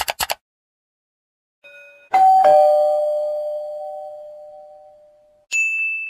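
A computer mouse clicking about four times in quick succession. This is followed by the loudest sound, a two-note ding-dong chime, high then low, ringing out for about three seconds. Near the end a single high ding starts.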